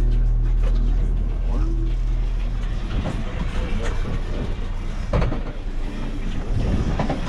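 Engine running with a steady low hum, turning into a rougher, uneven rumble with scattered knocks about three seconds in.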